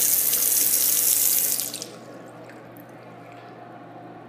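Bathroom sink faucet running, a thin stream of water splashing into the basin and drain, shut off about two seconds in. A low steady hum continues underneath.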